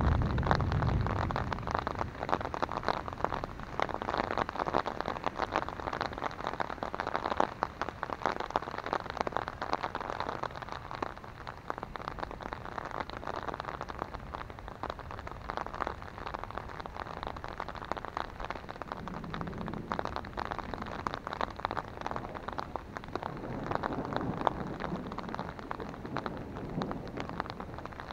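Rain pattering steadily on an umbrella overhead, a dense, even drumming of drops. A low rumble of thunder fades away in the first second or so, and fainter low rumbles come twice more later on.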